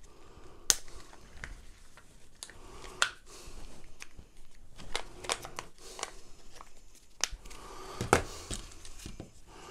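Handling noise: scattered light clicks and taps with crinkling rustle in between, and a sharper click about eight seconds in.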